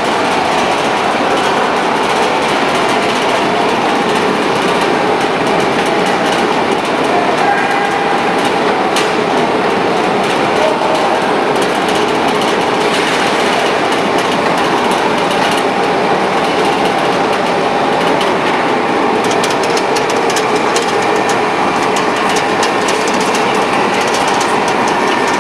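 Biscuit production line machinery running: a steady, loud mechanical noise from the conveyors and machines, with light ticks in the latter part.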